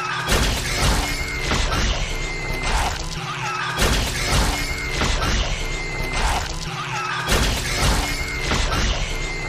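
Sound effects for animated creatures exploding: crashing, shattering impacts over music. The same clip of about three and a half seconds plays three times.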